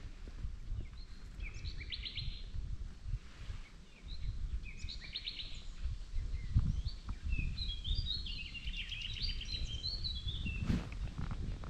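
Songbirds singing: short trilled phrases repeating every few seconds and a longer, more varied song near the end, over a low irregular rumble. A single short tap sounds near the end.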